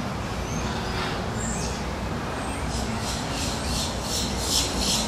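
Birds calling: a few short high chirps, then from about halfway a fast run of repeated high chirps. A steady low rumble lies underneath.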